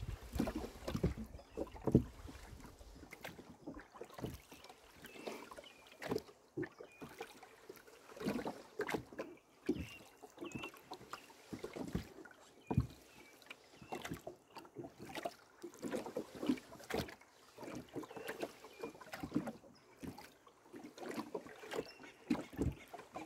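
Rowboat under oars: repeated knocks of the oars in their oarlocks and splashes of the blades in the water, stroke after stroke at uneven spacing.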